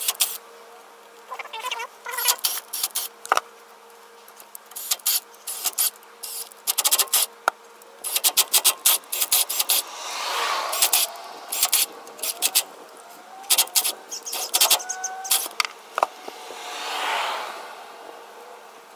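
Scattered sharp clicks and clatter of hand work on a vehicle's rear differential, over a faint steady hum. Two longer sounds swell and fade, about halfway through and near the end.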